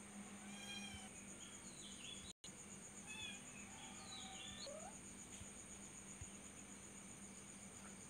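Faint cat meowing, a few drawn-out calls, over a steady high insect trill and a low hum.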